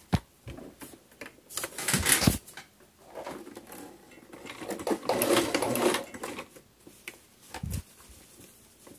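Domestic sewing machine stitching stretch knit fabric with a twin needle, running in short bursts, the longest about five seconds in.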